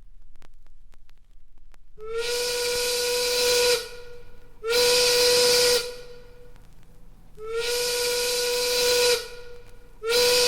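Steam whistle sounding four blasts, long, short, long, short, each a steady hissing tone that slides up in pitch as it opens. The first blast starts about two seconds in.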